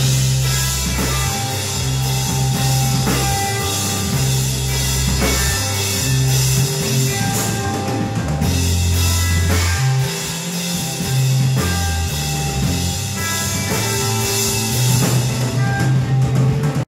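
Live rock band playing on bass guitar, drum kit and electric guitar, with long held low bass notes under steady drumming.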